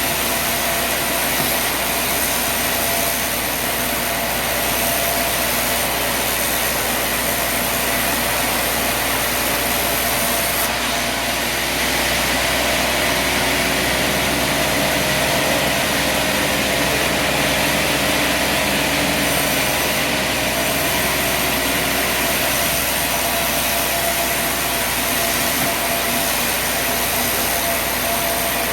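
Sawmill running steadily: engine and saw noise with a few steady whining tones. The high end changes for about ten seconds in the middle.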